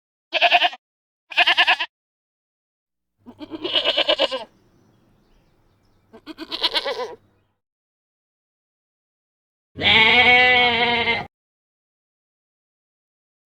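Goats bleating: two short bleats in quick succession, then two longer wavering bleats, and near the end one long, lower bleat, each call separated by silence.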